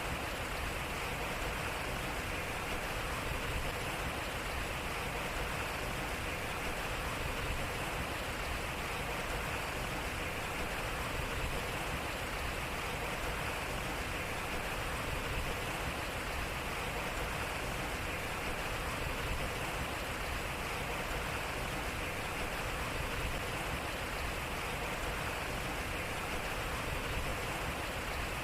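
Water flowing and splashing steadily around a turning waterwheel, an even rushing sound with a slight swell repeating about every four seconds.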